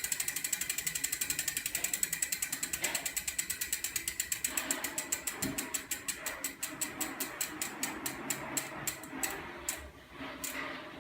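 Vuelta Carbon Pro V2 rear hub's freehub pawls ticking as the wheel spins freely. The clicks start fast, then slow and spread out as the wheel coasts down, stopping near the end.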